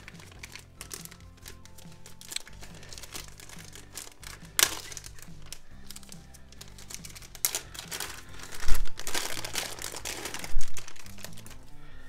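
Clear plastic packaging bag crinkling as it is handled and torn open, with the loudest crackling and ripping in the second half. Background music runs underneath.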